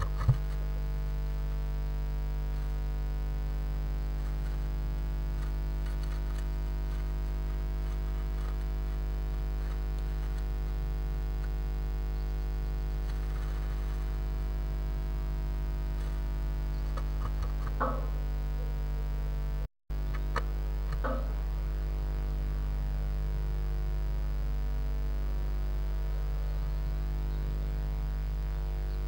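Steady electrical mains hum on the nest-box camera's audio, with a few brief scratches and rustles from a blue tit moving on the moss-and-grass nest inside the wooden box. The sound drops out for an instant partway through.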